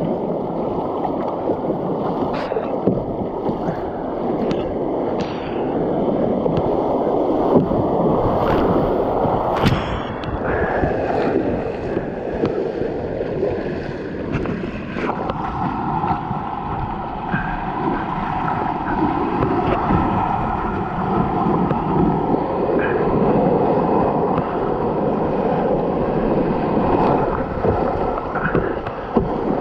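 Rushing whitewater churning around a slalom kayak, with splashes from the paddle blades as it strokes through the rapids.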